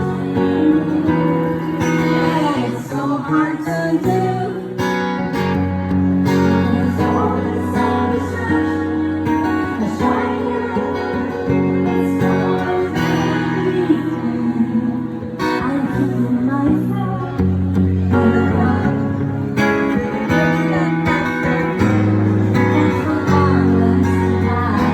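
A song performed live on acoustic guitar, with a woman singing over it.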